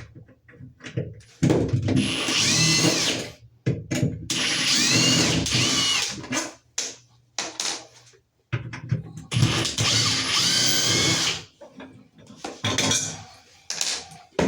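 Power drill/driver run in three bursts of a few seconds each, its motor whine rising and falling, then a few shorter runs near the end: it is backing out the screws of a shower valve cover plate.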